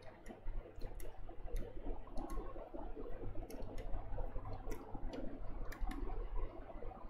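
A stylus tapping and scratching on a pen tablet while writing by hand: faint, irregular clicks over a low steady hum.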